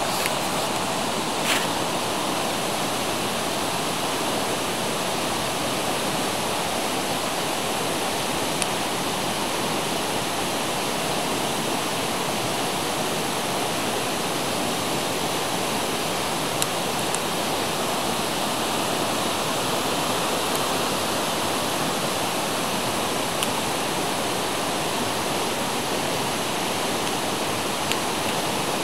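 Steady rushing noise of flowing water, even and unbroken, with a few faint brief clicks scattered through it.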